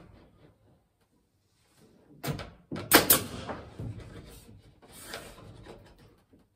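Wooden knocks as a stick of wood is positioned against the overhead wooden framing: two sharp knocks under a second apart, then softer scraping and handling.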